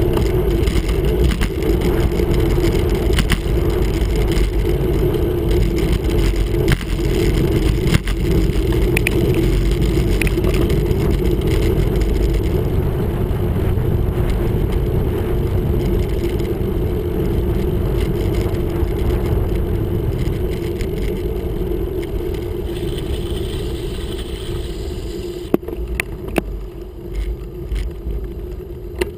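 Wind buffeting the microphone of a handlebar-mounted camera on a moving road bike, over a steady rumble of tyres on tarmac. The noise eases off in the last few seconds, with a few sharp clicks and knocks.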